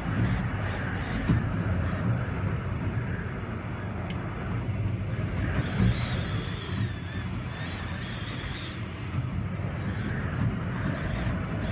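Typhoon-force wind buffeting the microphone: a continuous low rumble that swells and eases with the gusts, with a faint high whistle coming and going in the middle and near the end.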